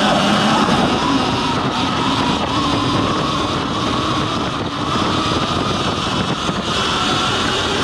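Sur-Ron X electric dirt bike being ridden on a dirt trail: the electric motor and chain drive whine, the pitch shifting with speed, over a steady rush of knobby-tyre and trail noise.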